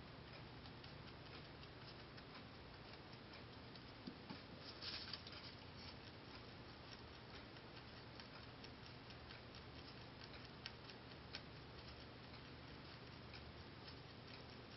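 Holland lop rabbit chewing timothy hay: faint, rapid little crunching pops (the uploader's 'puchi-puchi'), with a louder flurry of crunches about four to five seconds in and a couple of sharper ticks a little past the middle.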